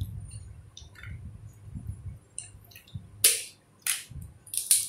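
Crisp fried papadam crackling and snapping in several sharp bursts in the second half, the loudest a little over three seconds in, over softer low sounds of eating by hand.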